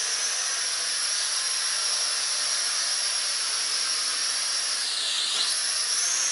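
XK Alien X250 quadcopter's motors and propellers whining steadily in hovering flight, with one motor freshly replaced. The high whine dips in pitch and comes back up about five seconds in.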